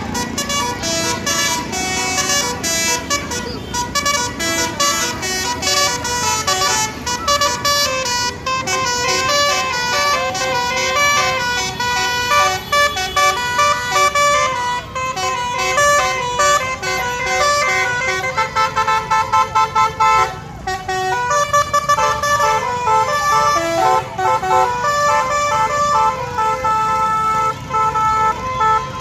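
Telolet basuri musical horn playing a tune as a run of stepped, held notes over traffic engine noise. A stretch of quick repeated short notes comes about two-thirds of the way through.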